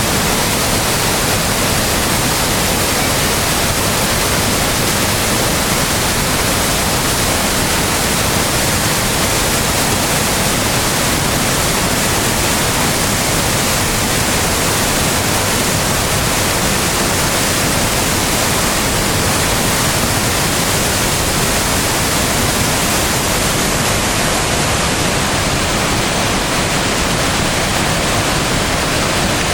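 Waterfall in spring flood, the Sabando river falling some twenty metres into its pool, making a loud, steady thunderous rush of water.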